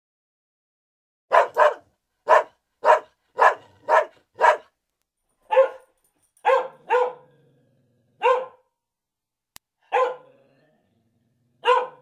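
A dog barking: about a dozen short single barks, starting about a second in and coming at an uneven pace, some in quick pairs.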